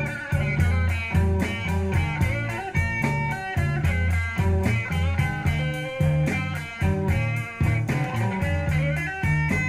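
Guitar-led rock music played from a vinyl LP through Design Acoustics PS-8c bookshelf speakers driven by a Sansui AU-555 amplifier, heard in the room, with a strong bass line.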